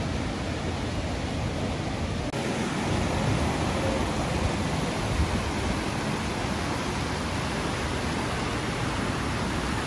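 Steady rush of flowing water: a waterfall, then a river pouring over rapids and a low rocky ledge after a change about two seconds in.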